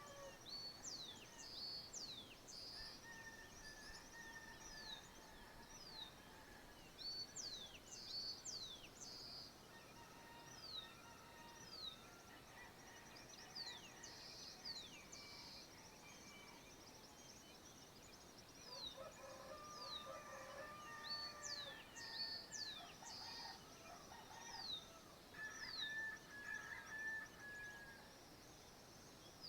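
Quiet dawn chorus of countryside birds: many short, high chirps that sweep sharply downward, repeated throughout, with a few lower, drawn-out whistled notes now and then.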